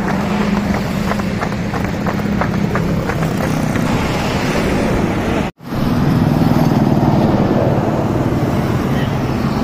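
Motorcycle and scooter engines running amid street traffic, with crowd voices in the background. The sound cuts out for an instant about halfway through, then a motorbike runs along the road with traffic noise.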